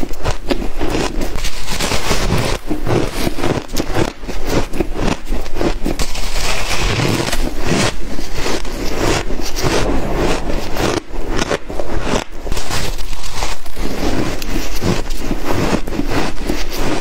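Shaved ice being bitten and chewed, a loud, dense run of crisp crunching and crackling with short breaks between mouthfuls.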